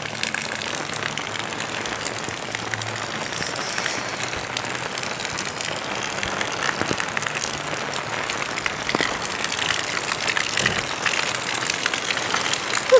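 Steady rain falling: an even hiss with many fine taps of drops.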